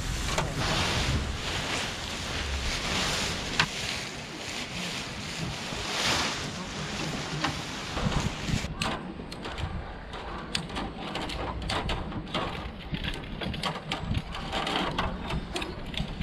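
Wind buffeting the microphone outdoors. About nine seconds in the sound turns duller and is broken by a run of small clicks and knocks, like gear being handled.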